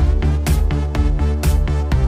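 Electronic dance music with a steady beat and a heavy bass line, a sharp snare-like hit about once a second.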